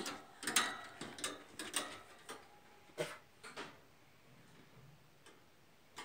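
A wire birdcage being handled as it is lifted to a hook: a string of light clicks and knocks from its metal bars and handle, about seven in the first three and a half seconds, then quiet.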